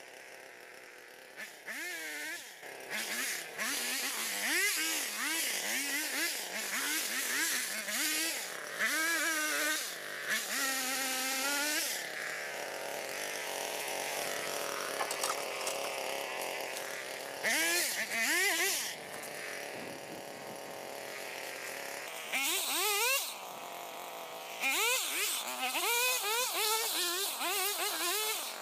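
Lawnmower engine working hard while cutting through brush, its pitch repeatedly sagging under load and climbing back, with loud bursts of noise as the mower chops through the growth.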